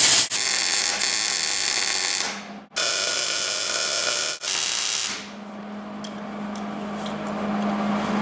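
Plasma cutter and arc welder working steel plate: loud hissing, buzzy stretches of about two seconds each with short breaks. From about five seconds in, only a quieter steady hum remains.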